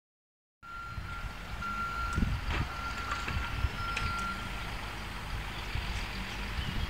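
A construction vehicle's reversing alarm beeping repeatedly for about four seconds, then stopping, over a steady low rumble.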